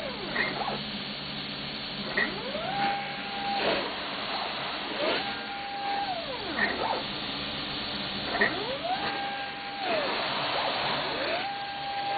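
RoboPainter digital airbrushing machine running through repeated passes. About every three seconds its drive motor whines up in pitch, holds steady, then winds back down, with a short high chirp near each pass. A steady low hum runs underneath.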